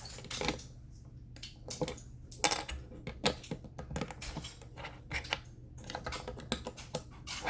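Plastic Lego bricks clicking and clattering as they are handled and pressed together: a string of irregular short clicks, the loudest about two and a half seconds in.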